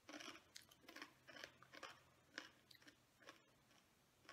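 Chewing crisp roasted snack sticks: a run of faint crunches, two or three a second, that die away after about three seconds.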